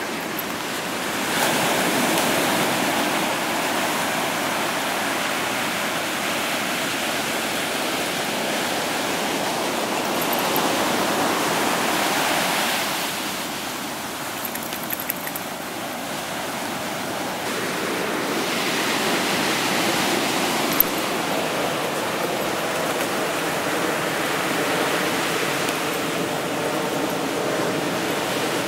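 Ocean surf breaking and washing up the beach: a steady rush that swells and eases every several seconds.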